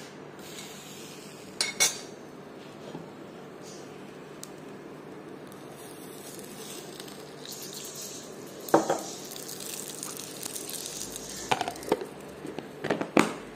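A hot coal in a steel ladle sizzles as oil is poured onto it to smoke minced meat. Metal clinks come near the start, and a quick series of knocks near the end as a clear lid is set over the bowl.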